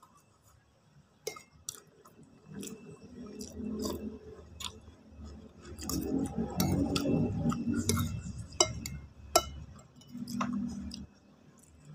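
A person chewing a mouthful of noodles and boiled egg with wet mouth sounds, in three stretches. Metal fork and spoon click against the ceramic plate now and then.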